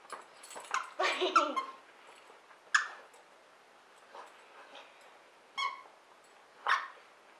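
Squeaker inside a plush fox dog toy squeaking as a basset hound chews and presses it: a quick run of squeaks about a second in, then three single short squeaks.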